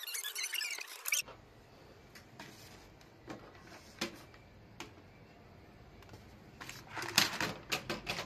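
A toothbrush scrubbing the wet plastic frame of a keyboard in soapy water, a dense scratching that stops abruptly about a second in. Then scattered light plastic clicks and rattles as loose keycaps and the keyboard frame are handled, with a quick run of clicks near the end.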